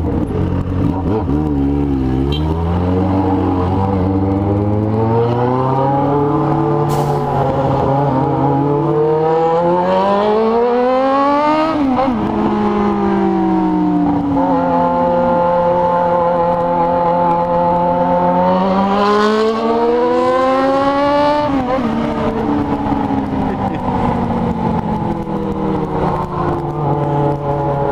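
Yamaha XJ6 motorcycle's inline-four engine through an aftermarket four-into-one exhaust, accelerating hard: the pitch climbs with the revs, drops sharply at upshifts about twelve and twenty-two seconds in, and holds steady at speed between the climbs.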